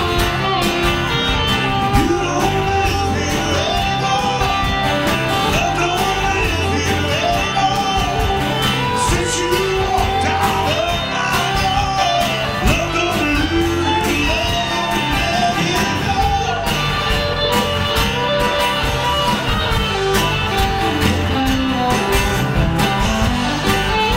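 A live band playing a song: a man singing over a strummed acoustic guitar, an electric guitar and a bass guitar.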